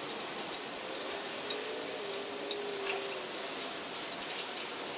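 A few faint, sharp metal clicks from an Allen key and a steel sprocket as the sprocket is seated on a keyed jackshaft and its set screw is tightened, over a steady hiss.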